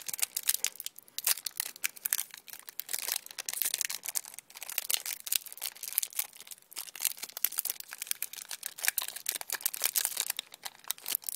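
Foil Yu-Gi-Oh booster pack wrapper being torn open by hand, crinkling and crackling in a dense run of quick crackles.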